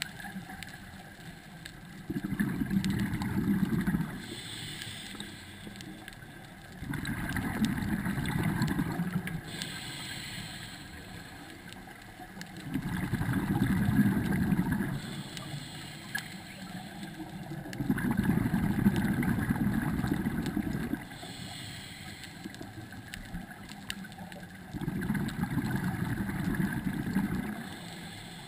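Scuba breathing through a regulator underwater: a short hiss on each inhale, then a longer bubbling rumble as the exhaled air vents, about every five to six seconds, five breaths in all.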